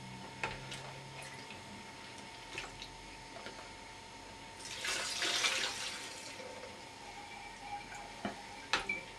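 Fermenting rhubarb wine poured from a plastic jug into a fine mesh straining bag, a splashing pour lasting about a second and a half around the middle, with a few light knocks of the jug before and after.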